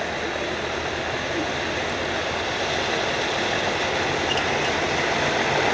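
Tsugaru Railway diesel locomotive hauling passenger cars as it approaches, its engine rumble and the running noise of its wheels on the rails growing steadily louder.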